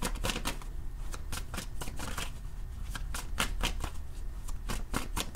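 Tarot deck being shuffled by hand: a quick, irregular run of short card clicks and riffles, several a second.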